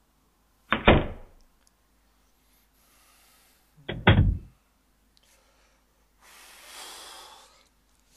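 Heavy thuds on a wooden door: one about a second in, then a quick double thud about three seconds later. Near the end comes a soft rushing noise lasting about a second and a half.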